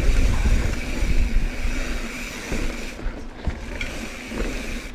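Santa Cruz Bronson mountain bike rolling along dirt singletrack, with wind buffeting the chest-mounted microphone and tyre noise. The rush eases about three seconds in, leaving a few short knocks from the bike over the trail.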